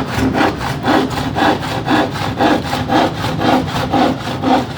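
Hand saw cutting through wood in steady back-and-forth strokes, about two a second.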